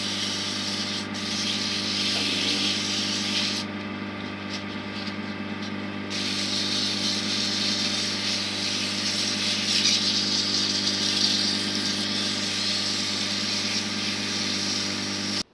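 Wood lathe running with a steady motor hum while abrasive paper hisses against a spinning oak pen blank, sanding out the last small tool marks. The rubbing drops away for about two seconds around the four-second mark, then resumes, and all sound cuts off suddenly near the end.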